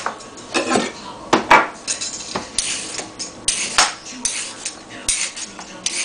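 A few sharp knocks on a plastic cutting board, then a vegetable peeler scraping down a raw carrot in short repeated strokes, about two a second.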